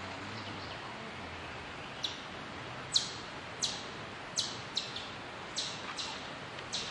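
A woodpecker calling: about eight short, sharp notes, each sweeping quickly down in pitch, at uneven intervals from about two seconds in, over a steady background hiss.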